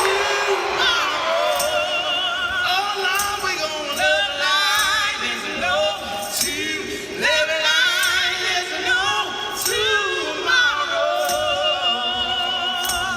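Live soul duet: a man and a woman singing with wide vibrato, accompanied by light percussive hits keeping the beat about every 0.8 seconds.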